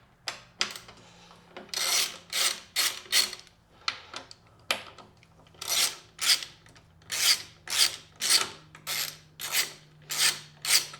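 Ratchet wrench being swung back and forth on a motorcycle's mounting bolt, a short rasp of clicks on each back-swing, about two to three a second, starting about two seconds in.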